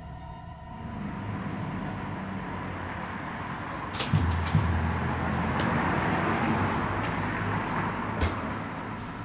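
Street traffic noise that swells in the middle as a vehicle passes. About four seconds in, a glass entrance door's latch and handle click a few times as it is pushed open, and a thud follows just past eight seconds.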